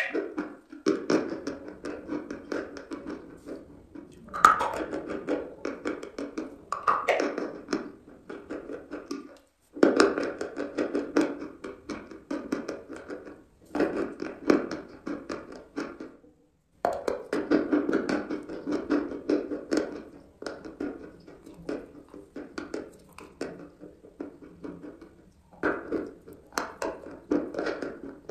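Chalk being chewed and crunched in the mouth, with many small mouth clicks, in several stretches broken by abrupt cuts.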